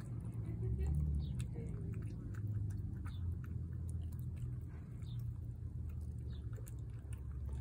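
Cat eating wet food from a plate: a run of small, irregular wet clicks and smacks from its chewing, over a steady low rumble.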